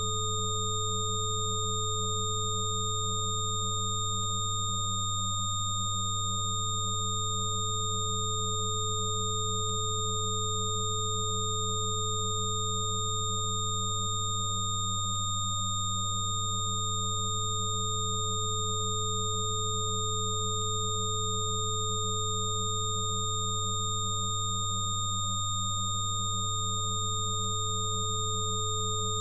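Several electronic sine tones sounding together as a steady drone, a low hum the strongest and fainter higher whistles above it. A middle tone briefly fades out and back three times, about ten seconds apart.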